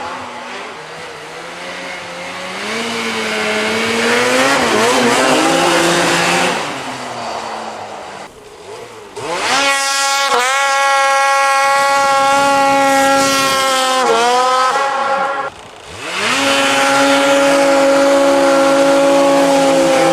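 Ski-Doo snowmobile engine and exhaust revving: wavering lower revs at first, then twice climbing quickly to a high, steady pitch, holding for several seconds and falling back off the throttle.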